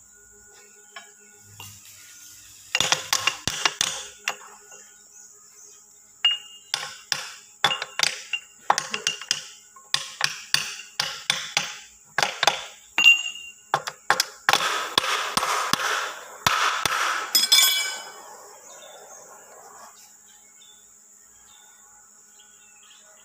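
A hammer strikes a metal driver held against a differential's pinion shaft, tapping a part down onto it. The blows are dozens of sharp, ringing metal-on-metal knocks at an uneven pace. They start about three seconds in and stop about eighteen seconds in.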